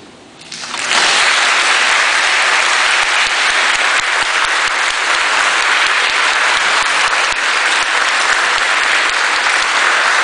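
Church congregation applauding, breaking out about a second in and then holding loud and steady.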